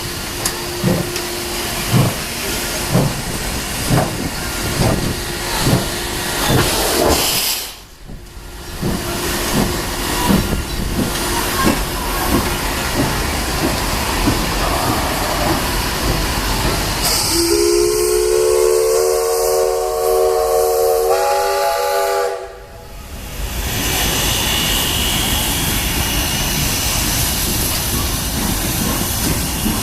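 P36 steam locomotive working away: exhaust chuffs in an even beat for the first several seconds over steady steam hiss. About 17 seconds in comes a long steam whistle of about five seconds, its pitch climbing in steps.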